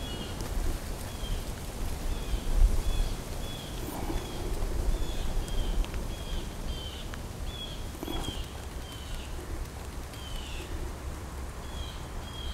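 A songbird calling with short, slightly falling chirps, about two a second, over a low rumble, with a couple of faint rustles.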